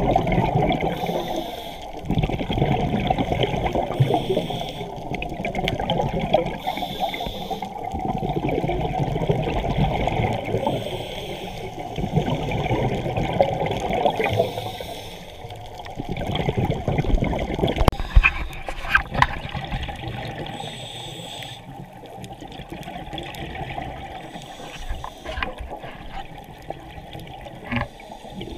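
Scuba diver's regulator breathing underwater: exhaled bubbles rushing and gurgling past the camera in surges every few seconds, quieter between breaths. A few sharp clicks in the second half.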